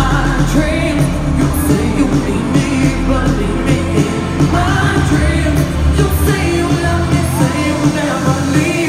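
Live pop band, with drums, bass guitar and keyboards, playing while a woman sings lead into a microphone, heard amplified from within the audience in a large hall.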